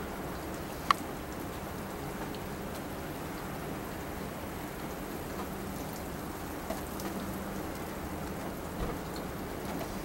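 Steady rain falling and pattering on nearby surfaces, with one sharp tick about a second in and a few fainter ticks later.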